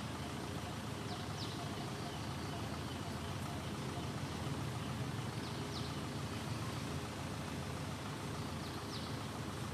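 Steady outdoor background noise with a low hum. Over it come short, high chirps in pairs, three times: about a second in, in the middle, and near the end.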